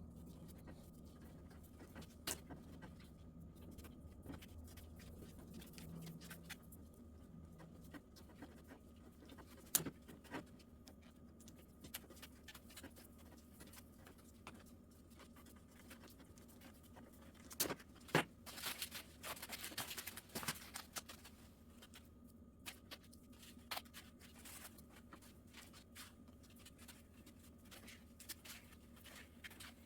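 Faint low steady hum with scattered light clicks and knocks, a short cluster of them about two-thirds of the way through.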